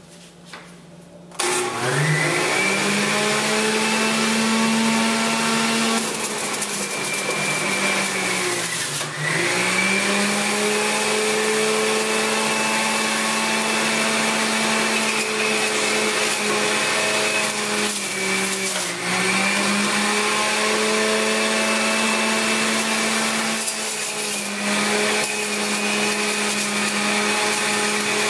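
Hamilton Beach centrifugal juice extractor's motor switching on about a second in and spinning up to a steady high whine. It sags briefly in pitch several times as produce is pressed down the chute against the spinning cutter.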